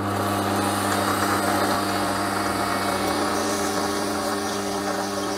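Small metal lathe running steadily, spinning a gearbox shaft in its chuck: an even motor hum with a hiss over it.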